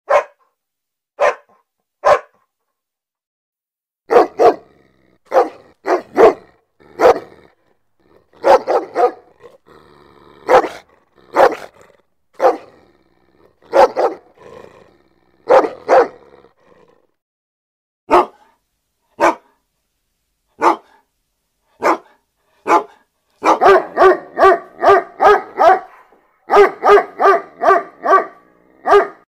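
A dog barking angrily and loudly in short, sharp barks with uneven pauses between them, then in fast runs of about four barks a second over the last few seconds.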